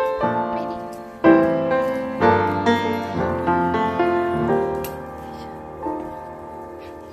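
Background piano music: chords struck every second or so, each ringing and fading away.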